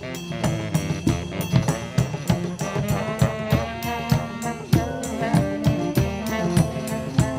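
Small street brass band playing live: saxophone and trumpet carrying the tune over a steady beat of bass and snare drums.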